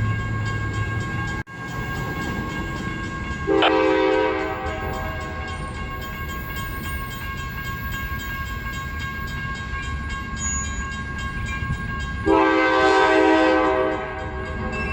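A freight train running past under a GE C40-8W (Dash 8-40CW) locomotive, which sounds its multi-chime air horn: a short blast about three and a half seconds in and a longer one near the end, over the steady rumble of the train.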